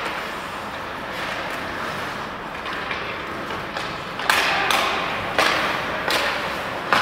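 Ice hockey play: a steady scrape of skates on the ice, then from about four seconds in a run of sharp clacks of sticks, puck and boards, about five of them, the loudest at the start of the run and just before the end.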